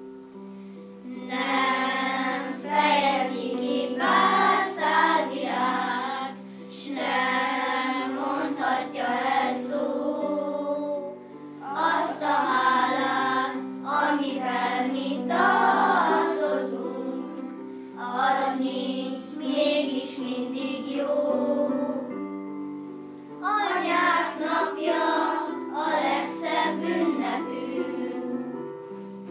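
Children's choir singing a song in phrases, with steady held notes of an instrumental accompaniment underneath.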